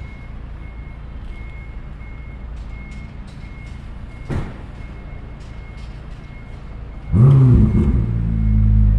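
A McLaren sports car's twin-turbo V8 starting about seven seconds in: a loud flare of revs that drops back within a second into a steady, loud idle. Before it, low street-traffic rumble with a high beeping repeating a little under twice a second, and a brief rushing sound about halfway through.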